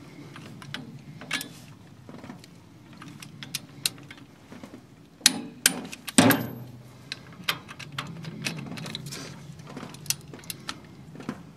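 Torque wrench and socket on the flow control valve cylinder head bolts of a Ford 1920 tractor, being tightened to 60 foot-pounds: scattered sharp metal clicks, the loudest about six seconds in.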